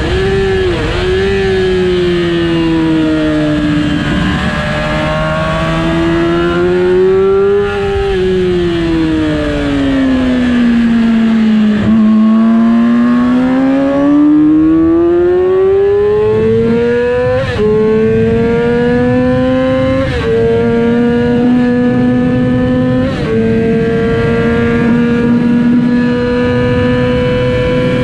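2007 Yamaha R6's inline-four engine at speed on track, with a steady rush of noise beneath. The revs sag and rise over the first dozen seconds, then climb steadily from about twelve seconds in, with three quick upshifts in the second half, and hold high near the end.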